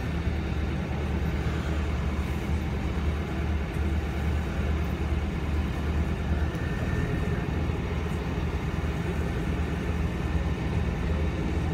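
Canal tour boat's engine running with a steady low drone, heard on board as the boat cruises along the canal.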